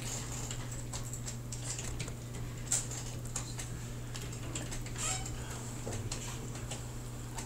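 Scattered computer mouse and keyboard clicks at uneven intervals while vertices are placed to digitize a polygon in GIS software, over a steady low hum.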